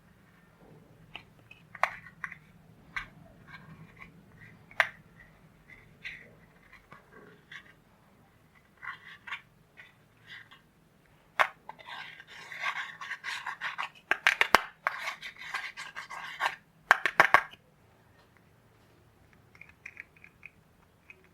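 Clear slime being squeezed and kneaded by hand, making wet clicks and pops. The clicks come one at a time at first, then run together into a dense crackling squelch for several seconds past the middle before stopping.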